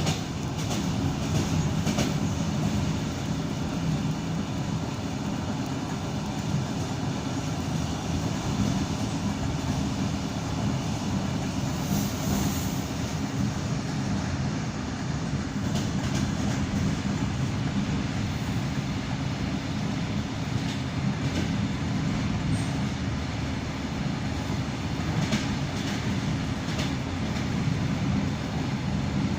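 ED9M suburban electric train running along the line, heard from inside the carriage: a steady rumble of the wheels on the rails with a few faint clicks over rail joints.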